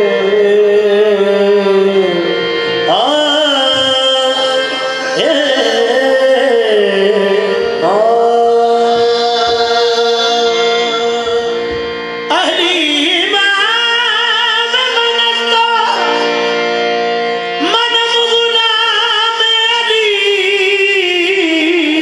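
Qawwali: lead singers draw out long, wavering sung notes that slide between pitches, a new phrase starting every few seconds, over two harmoniums holding steady notes and tabla underneath.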